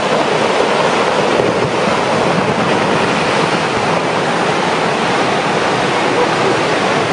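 Steady, loud rushing of turbulent water, an even noise with no separate knocks or tones.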